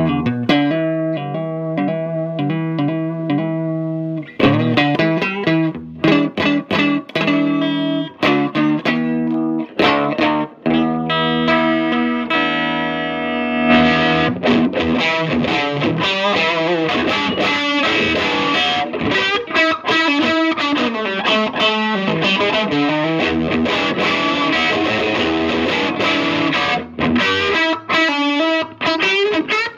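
A stock Stratocaster electric guitar played through a TopHat Mini Junior HG 1x12 tube combo amp (GZ34 rectifier, two 6V6 power tubes, three 12AX7s, Celestion G12H speaker), recorded straight on by a phone's microphone. It plays chords and single-note phrases. About halfway through, the tone turns brighter and denser as the playing moves into faster runs.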